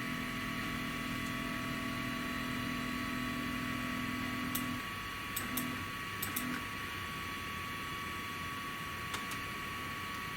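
Stepper motors of a 3018 benchtop CNC router jogging an axis at slow speed: a steady low hum for about five seconds that stops, then two short bursts of movement, with a few light clicks in between.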